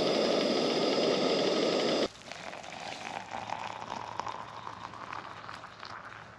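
Camping gas stove burner running with a steady loud hiss as water heats for coffee, cutting off suddenly about two seconds in; after that only faint scattered clicks and light rustling.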